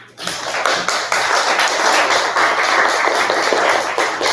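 Audience applauding: many hands clapping together, breaking out almost at once and holding steady.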